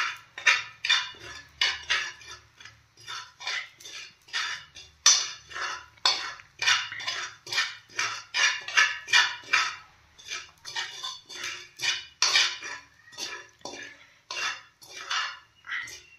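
A steel spoon scraping and stirring asafoetida powder as it dry-roasts in a metal pan, in short repeated scrapes about twice a second.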